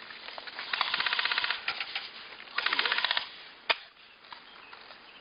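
Airsoft electric rifle firing two full-auto bursts, a rapid even rattle of about fifteen shots a second, the first burst about a second long and the second about half a second, followed by a single sharp click.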